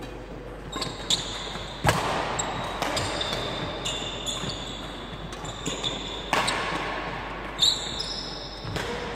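Badminton rally: sharp racket hits on the shuttlecock, the loudest about two seconds in and another a little after six seconds, with short high squeaks of court shoes on the wooden sports-hall floor in between.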